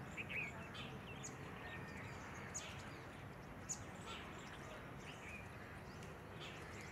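Short high bird chirps, about one a second, scattered over a steady low background rumble.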